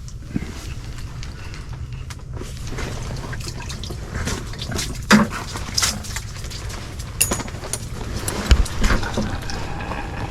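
Water splashing and dripping at an ice-fishing hole as a fish is brought up through it, with scattered clicks and knocks over a steady low rumble.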